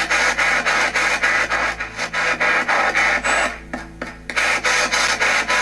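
Spirit box sweeping rapidly through radio frequencies: choppy bursts of static and radio noise, about seven a second, with a brief quieter dip about three and a half seconds in.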